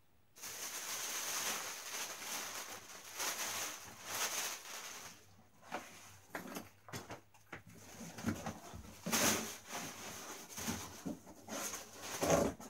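Plastic wrapping rustling and crinkling as it is handled, in irregular bursts. Near the end, a cardboard box is handled with a louder knock.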